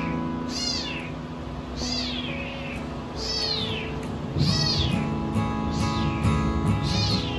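A young kitten meowing over and over: about six high-pitched cries, each falling in pitch, a little more than one a second. These are the distress cries of an orphaned kitten calling for its mother.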